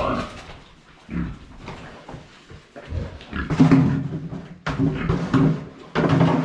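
Domestic pigs squealing in a run of loud calls: hungry pigs calling for their feed.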